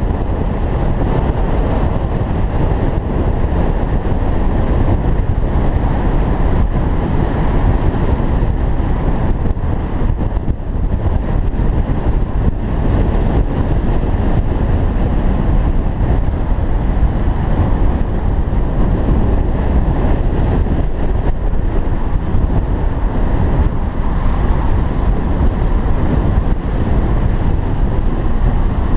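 Wind rushing over the microphone of an action camera mounted on a moving vehicle, mixed with road and engine noise: a steady low rush with no changes.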